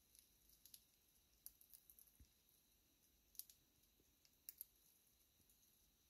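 Faint, scattered small clicks and crinkles of budgies' beaks nibbling shredded paper strips, with a few sharper ticks in the second half.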